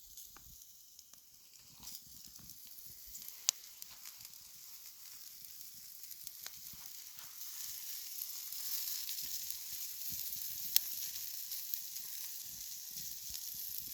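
Tomahawk ribeye steak sizzling over a juniper wood fire. The sizzle grows louder in the second half, with a few sharp pops.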